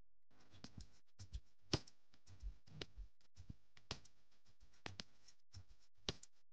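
Faint, irregular light clicks and knocks, about twenty over several seconds.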